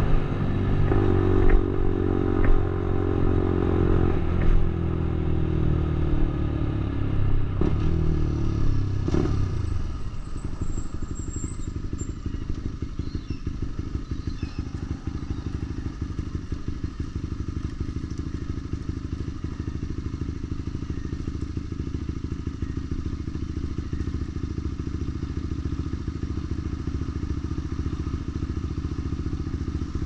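Lexmoto LXR 125's single-cylinder 125cc engine through a Black Widow aftermarket exhaust. The engine note falls as the bike slows, with a few sharp knocks along the way. For the last two-thirds it settles into a steady, low, pulsing idle.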